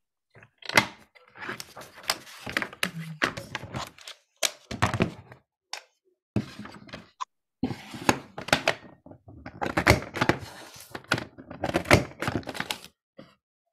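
Creative Memories Border Maker punch with a Pyramid Keyhole cartridge being pressed down again and again along a sheet of scrapbook paper: a series of sharp thunks and clicks in clusters, with short pauses while the paper is moved on.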